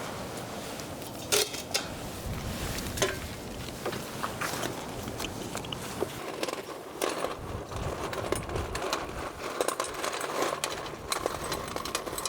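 Gusty wind rumbling on the microphone, with scattered clicks and knocks throughout, the sharpest about a second and three seconds in.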